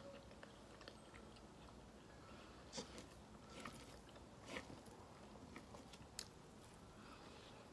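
Faint chewing and mouth sounds of a person eating rice, beans and chicken with her fingers, with a handful of short sharp clicks or smacks, the loudest about three and four and a half seconds in.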